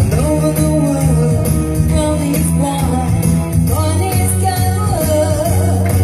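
Live pop song: a man singing the lead melody into a microphone over backing music with a steady bass line and jingling, tambourine-like percussion.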